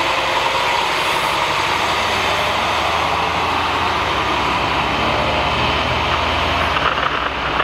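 Engines of heavy emergency vehicles, a fire-rescue truck and an ambulance, running steadily as they drive off.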